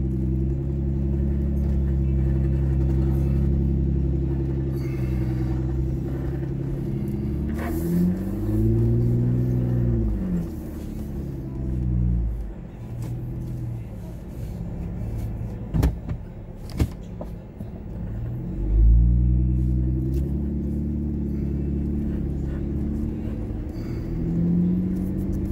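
Four-wheel-drive vehicle's engine pulling in low range, its revs rising and falling about a third of the way in. It eases off through the middle, where there are two sharp knocks, then picks up again and revs up near the end.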